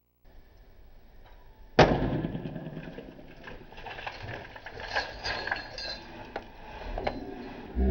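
A full carton of pink milk on concrete burst by a hard blow: one sharp smash about two seconds in, followed by several lighter knocks.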